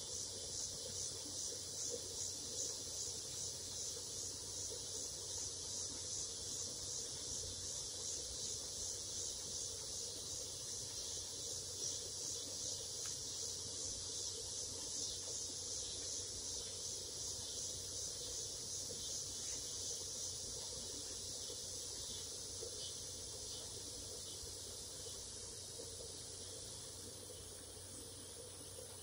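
Evening insects chirping in a high, even rhythm of about two pulses a second. About twenty seconds in, the pulsing gives way to a steadier, slowly fading high trill.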